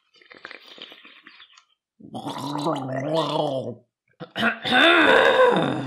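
A person takes a faint sip, then gargles a mouthful of drink twice with voice, the second gargle louder.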